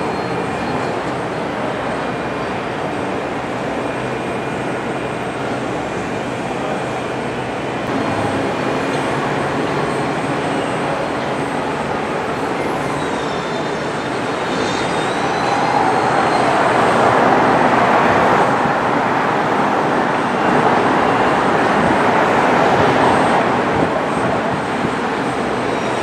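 Disneyland Railroad train rolling along its track: a steady rumble and clatter, louder in the second half, with faint high wheel squeals about halfway.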